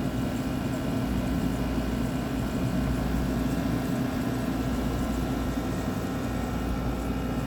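2018 GE 6,000 BTU wall air conditioner running steadily: the low hum of its Qingan rotary compressor and fan, with a thin steady whine above it. The unit is freezing up, with ice forming on the coils and the compressor.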